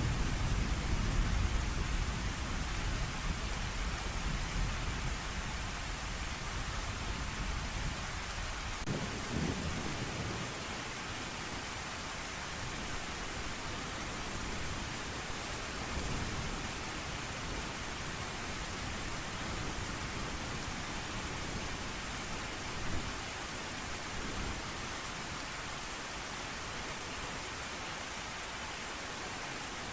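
Steady heavy rain hissing, with a low thunder rumble that fades away over the first ten seconds or so, then a few brief faint rumbles of distant thunder.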